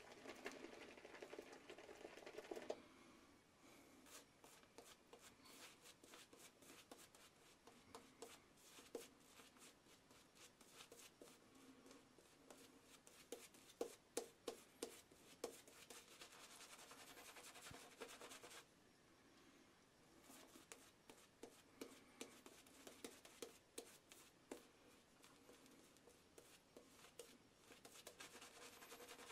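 Razorock boar-bristle shaving brush working lather over the face: a faint, fast, crackly scrubbing that goes on almost without a break, briefly easing off in the middle.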